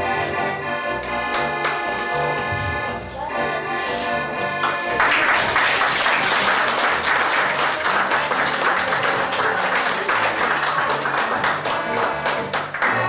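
Electronic keyboard playing an accordion-like tune over a steady rhythmic bass. About five seconds in, the audience starts applauding over the music and keeps clapping.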